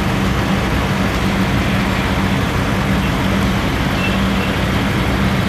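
EMD GP38-2 diesel locomotives' 16-cylinder prime movers working under throttle, a steady, loud low drone as the units pull along the track.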